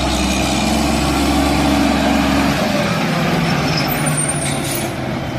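Heavy truck engine running steadily with a deep rumble that shifts about halfway through, and a short hiss like an air brake near the end.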